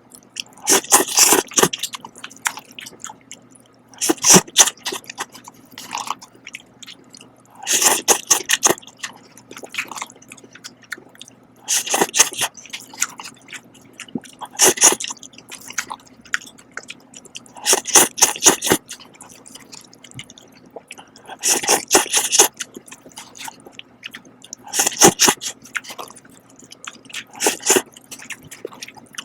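Close-up eating of Shin cup noodles: wet slurping and chewing sounds come in short bursts about every three to four seconds, with a faint steady hum underneath.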